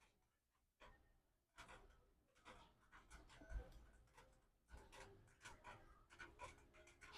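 Faint, irregular small clicks, taps and rustles of hands handling small electronic parts and wiring, with one low thump about halfway through.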